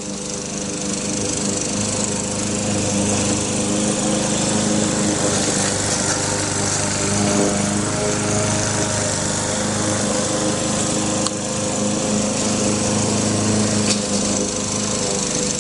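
Engine of a small track-mounted drilling rig running steadily at constant speed, with a continuous hiss over it.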